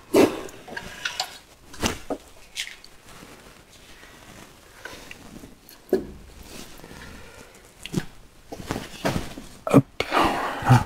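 Irregular knocks and clunks of metal machine parts being handled as the power feeder on a Felder KF 500 shaper is swung aside and moved, with more of them close together near the end.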